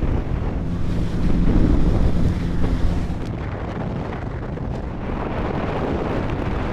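Wind buffeting the microphone over the rush of breaking surf and moving water. For the first few seconds a steady engine hum, from the tow jet ski, runs underneath.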